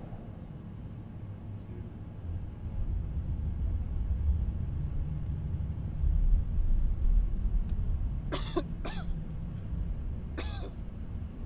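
A steady deep rumble that slowly grows louder. Over it a person coughs three times: twice close together a little past the middle, then once more near the end.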